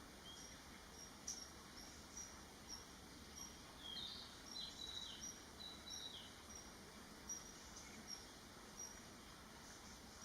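Common kingfisher fledgling calling: short, faint, high peeps repeated about every half second, with a few lower, falling calls about four to six seconds in.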